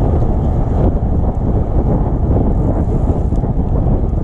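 Wind buffeting the microphone: a loud, steady, dense rumble with no clear pitch.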